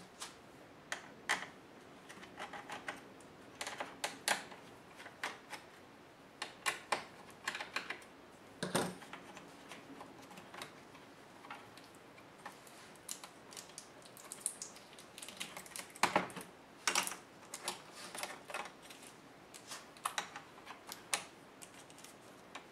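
Irregular plastic clicks, taps and clacks as laptop parts and small tools are handled during disassembly, sometimes in quick clusters, with a few louder knocks.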